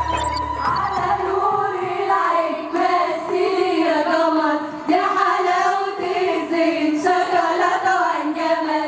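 A chorus of women singing an Egyptian folk song together, holding long notes that rise and fall in unison, with a few sharp percussive hits in the middle.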